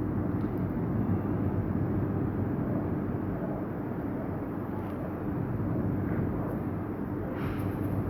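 Steady background noise of a mosque prayer recording: a low hum and rumble with hiss and no distinct events.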